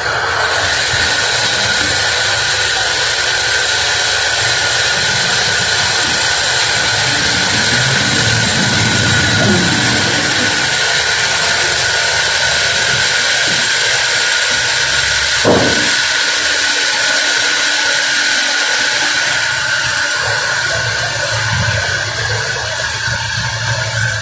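Sawmill machinery running steadily with a constant high whine, and a single short knock about fifteen seconds in.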